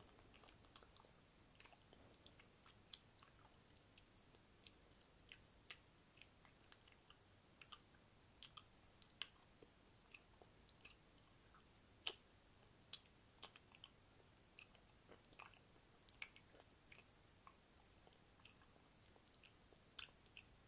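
Wet mouth sounds: irregular, sharp tongue and lip clicks and smacks, a few each second.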